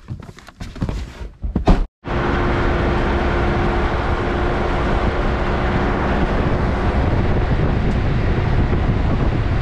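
A ute door being handled and pulled shut: a few knocks, then a slam just before two seconds in. Then the steady, even rush of the ute driving along a dirt bush track, with a faint constant hum.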